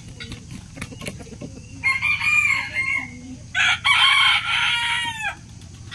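Rooster crowing, two loud drawn-out calls, the second longer and ending on a falling note.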